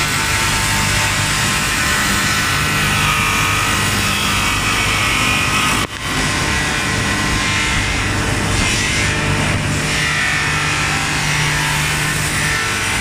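WEMA Conquest CNC wood-turning lathe running and working a wooden spindle, cutting and belt-sanding it, as a steady loud machine noise with a low hum. The noise drops briefly about six seconds in.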